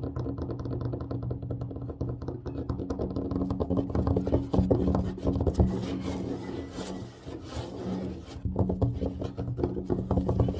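Fast, aggressive tapping with the fingers on a tabletop, many taps a second, mixed with scratching strokes across the surface, heaviest in the middle.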